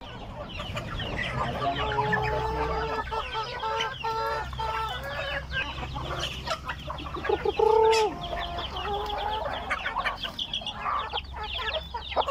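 A flock of domestic chickens clucking and calling while feeding, with many short calls, several drawn-out calls, and one loud call a little before eight seconds in.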